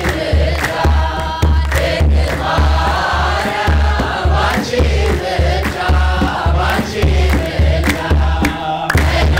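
A kebero drum beats a steady rhythm about twice a second under a choir of men and women singing an Ethiopian Orthodox wedding hymn, with hand clapping.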